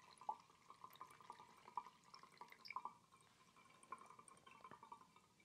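Homemade peppermint liqueur trickling and dripping through a cloth dish towel into a glass bottle as it is filtered: faint, quick drips that thin out and stop near the end.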